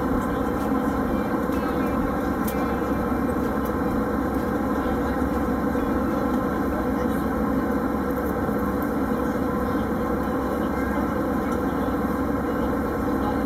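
Steady cabin noise of an Airbus A320 airliner in cruise flight: an even, unbroken rush of engine and airflow noise, strongest in the low and middle range.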